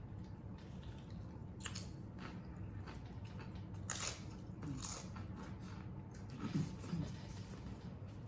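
Close-up chewing and crunching of corn tostada chips with dip, with a few sharp crunches about one and a half, four and five seconds in, over a steady low hum.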